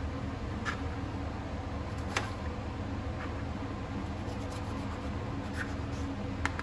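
A few short light clicks and scrapes, about five in all, over a steady low hum.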